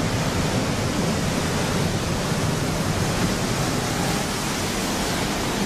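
Heavy storm surf breaking over a seawall: a loud, steady rush of crashing waves and churning water.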